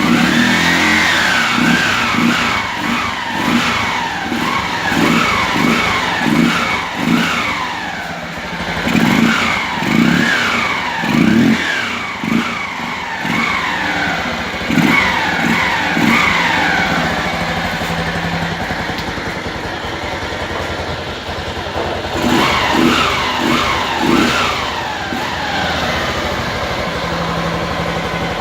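Motorcycle engine revved in repeated quick blips, each rising and falling back to idle, with a louder, sporty intake sound because a piece inside the air filter cover has been removed while the filter stays in place. It idles for a few seconds past the middle, is blipped a few more times, then settles back to idle near the end.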